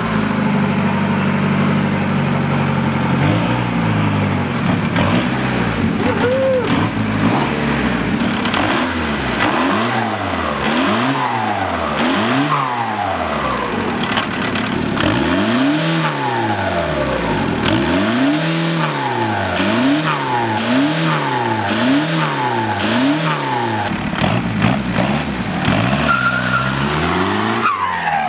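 Cummins diesel engine swapped into a VW Beetle running steadily, then revved up and down over and over, about one rise and fall every second and a half, as the car is driven.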